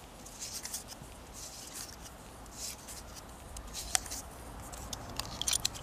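PTFE tape being pulled off its plastic reel and wound tightly around the male thread of a brass radiator valve insert: faint, soft rustling and scratching with a few small clicks, one sharper about four seconds in.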